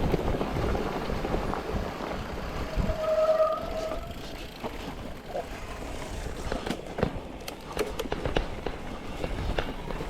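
Mountain bike riding on a trail: uneven rumble of wind on the microphone and tyres over the ground, with scattered clicks and rattles in the second half and a brief squeal about three seconds in.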